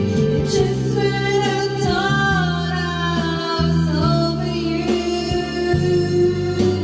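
A woman singing karaoke into a handheld microphone over a backing track, holding long notes that glide up and down.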